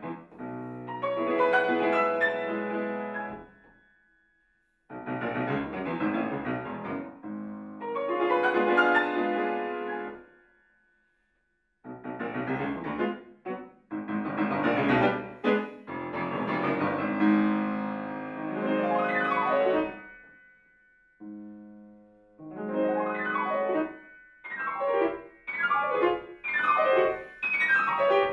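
Solo grand piano playing classical music in phrases of a few seconds, each broken off by a short pause, turning to quicker, choppier figures near the end.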